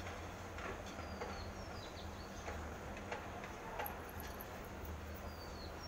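Faint scattered taps and clicks of cats' paws and claws on a tile floor as two cats play, over a steady low hum, with a few short high chirps.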